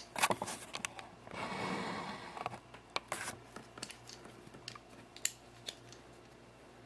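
Needle-nose locking pliers being handled at a small RC crawler's axle: a series of sharp metal clicks, with a scraping rustle about a second and a half in.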